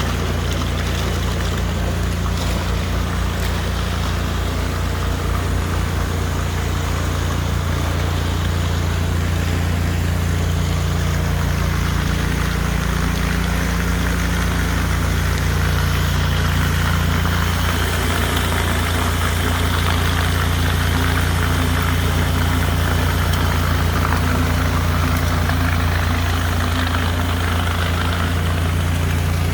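High-pressure washer running steadily with a low hum, while water jets from a rotary floor surface cleaner hiss against the floor. The hiss gets somewhat stronger about halfway through.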